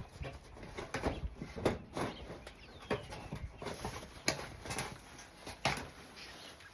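Scattered knocks and clicks of hand repair work on a dove enclosure roof, with pet doves cooing.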